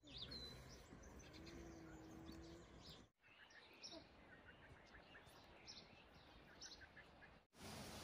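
Faint birds chirping: short, high chirps scattered over a low outdoor hiss. The sound drops out briefly twice.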